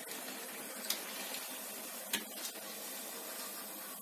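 Hot oil sizzling steadily in an iron kadai as chakli fry in it, with two faint clicks, about a second and two seconds in.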